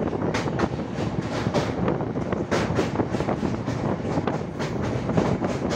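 Train running across a steel girder bridge: a steady rumble with the wheels clattering over the rail joints several times a second.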